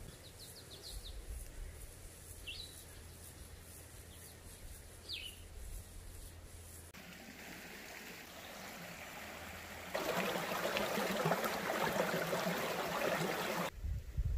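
A few short, high bird chirps, three in the first six seconds, over faint outdoor background; then, about ten seconds in, a louder, even rushing of running water that stops abruptly shortly before the end.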